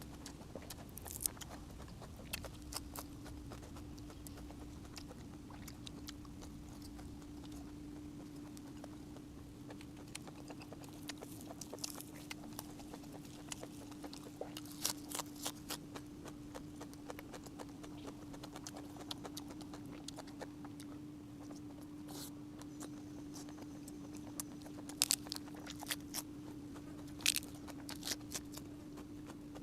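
A person chewing and eating, with scattered sharp clicks and smacks of the mouth and utensils. A few louder clicks come near the end, over a steady low hum.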